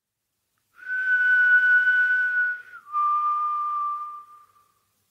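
A person whistling two long, breathy notes, the second a step lower than the first.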